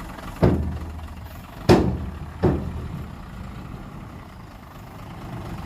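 Heavy diesel engine running steadily, with three loud bangs in the first two and a half seconds, each ringing briefly.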